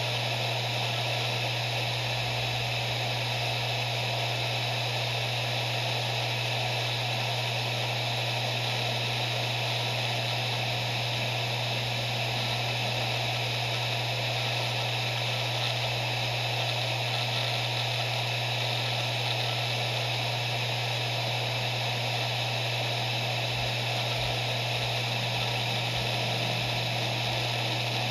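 Maxtor MaXLine Plus II 7200 RPM hard drive spinning at speed: a steady hum with an even hiss above it, and no seek clicks.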